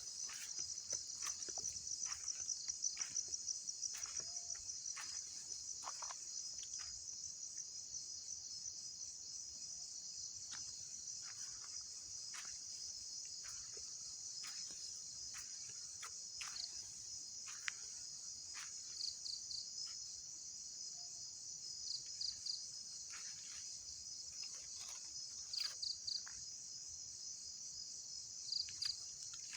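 Night insects, cricket-like, trilling steadily at a high pitch. The trill pulses rapidly in the first few seconds. Later, short groups of two or three chirps stand out every few seconds, among scattered faint clicks.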